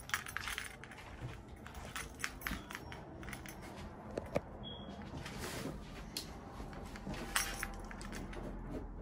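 Faint scattered clicks and light rattles of small hard objects, with one short high beep about halfway through.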